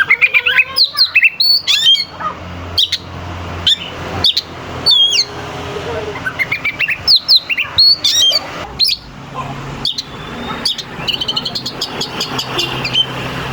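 Oriental magpie-robin (kacer) singing a loud, varied song of sharp sliding whistles and harsh clicking notes, with a quick run of rapid notes near the end.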